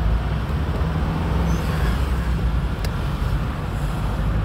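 Car driving through city traffic, heard from inside the cabin: a steady low engine and road rumble. There is one brief click a little over halfway through.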